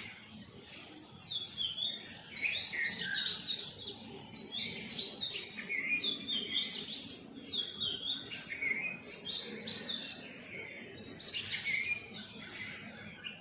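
Birds chirping: a steady stream of short, high chirps and quick trills that follow one another without a pause.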